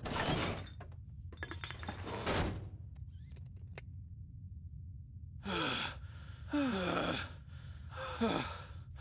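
Two cartoon characters breathing heavily and letting out several falling, exhausted groans and sighs in the second half. Before that come some rustling thuds of them dropping into their seats and a few sharp clicks.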